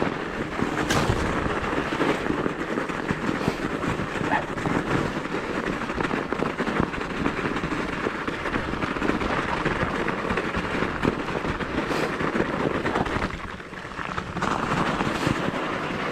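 Mountain bike riding over packed, rutted snow. The knobby tyres crunch and the bike rattles in a dense, continuous crackle, with occasional sharper knocks from bumps.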